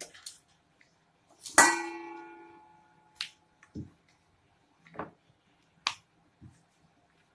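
A hard ringing clink about one and a half seconds in, a kitchen vessel knocked, its tone dying away over about a second, then five short clicks and taps as a drinking glass is set and pressed onto rolled-out puri dough on the counter to cut rounds.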